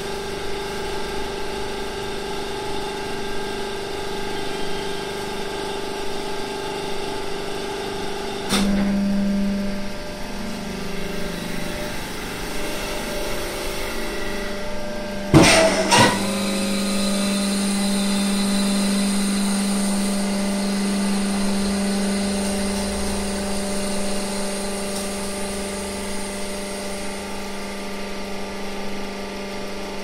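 Hydraulic waste-paper baling press running: its motor and hydraulic pump hum steadily, the tone shifting as the control levers are worked and the pump takes up load. Two sharp metallic bangs come about halfway through, followed by a steadier, stronger hum with a high whine for about ten seconds.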